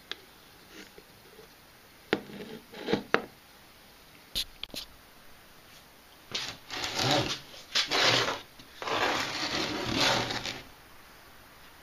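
A few sharp clicks and knocks of wood and metal being handled, then a plywood box scraping and rubbing as it is slid and shifted about on a wooden workbench for about four seconds.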